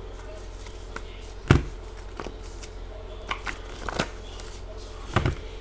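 Tarot cards handled on a table: a handful of sharp taps and knocks as the deck is gathered and squared, the loudest about a second and a half in and another near the end, over a steady low hum.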